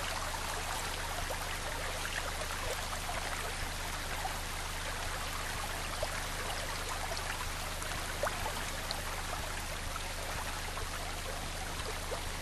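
Floodwater pouring and trickling steadily, with a few faint scattered drips.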